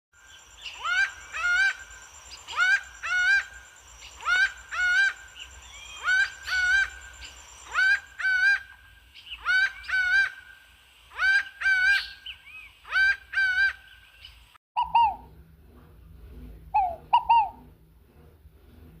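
Wild birds of the Brazilian caatinga calling: a loud two-note call, each note rising then falling, repeated roughly every second and a half, with a faint steady high whine behind it for the first half. About three-quarters of the way in it cuts abruptly to a different, lower call, short falling notes in quick pairs over a low hum.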